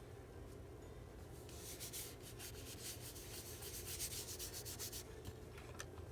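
Quick, faint rubbing strokes on paper, starting about a second and a half in and stopping near the end, as a glued paper piece is smoothed down onto a card.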